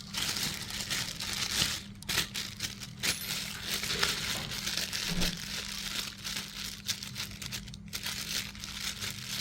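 Packaging crinkling and rustling as it is handled and unwrapped, an irregular run of small crackles throughout.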